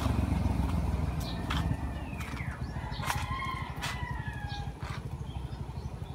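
A rooster crowing: one drawn-out call about three seconds in that lasts under two seconds. Under it runs a low rumble on the microphone, loudest at first, with a few sharp clicks.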